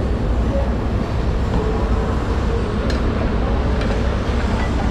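A steady low rumble of background noise, with one faint click about three seconds in.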